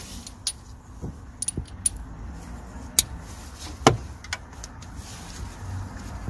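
Sharp, irregular metallic clinks of a steel socket and extension knocking against bolts and engine metal while the EGR cooler's mounting bolts are fitted. The loudest clink comes a little before four seconds in.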